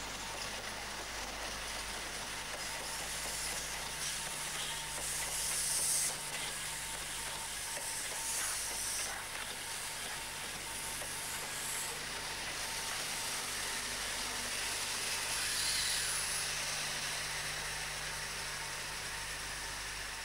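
British Rail InterCity 125 high-speed train running through the station at speed: a steady rushing noise of wheels on rail and air from the passing Mark 3 coaches. The noise swells a few times, loudest about six seconds in and again near sixteen seconds.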